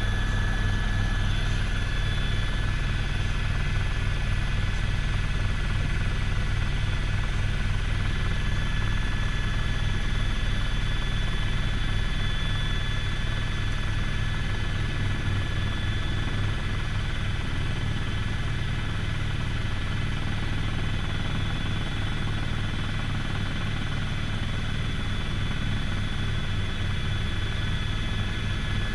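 Helicopter heard from inside its cabin: a steady, fast rotor beat under the engine hum, with a constant high whine on top.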